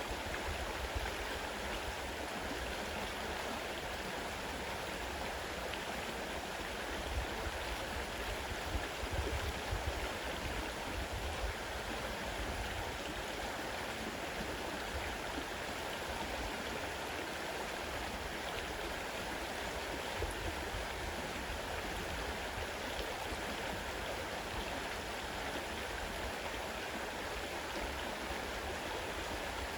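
Fast-running river water rushing and gurgling steadily over rocks.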